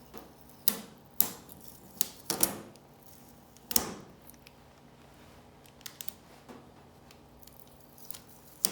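Irregular sharp clicks and knocks, about a dozen spread over several seconds, the loudest in the first few seconds, as of hard objects being handled or set down.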